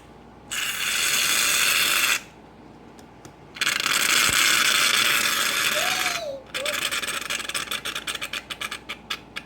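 Aerosol can of shaving foam spraying in two long hisses. It then sputters in rapid short spurts, the sign of a can running nearly empty.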